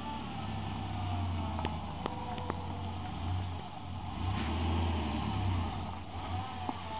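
Ford Explorer's engine pulling the SUV slowly up a sandy dirt track, its low rumble swelling twice as the driver gives it gas, with a few light clicks along the way.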